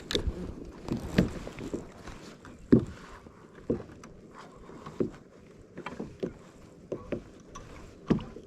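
Irregular knocks and splashes from a small fishing boat on the water, about one every second or so, the loudest about a second and three seconds in.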